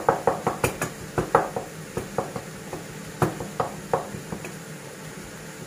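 Spatula knocking and scraping against a granite-coated pan while stirring a minced-meat mixture: quick irregular taps, several a second, thinning out after about four seconds.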